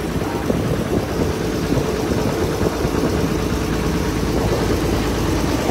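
River ferry's engine running steadily, a low, continuous drone heard from the passenger deck while the boat crosses the river.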